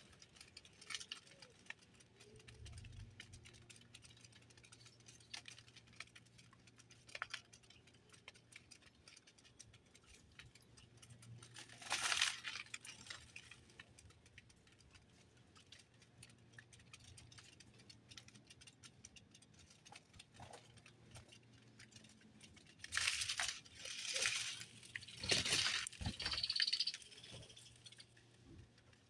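Small birds at a feeder: scattered light pecking and rattling of seed, with louder rustling flurries about twelve seconds in and several more near the end.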